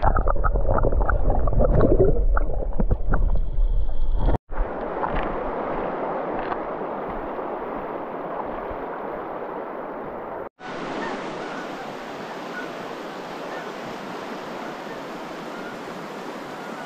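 River water heard underwater: a heavy, muffled rushing with bubbling clicks. About four seconds in it cuts to a shallow river running over stones, a steady rushing, and a little past halfway it cuts again to a similar steady rushing with more hiss.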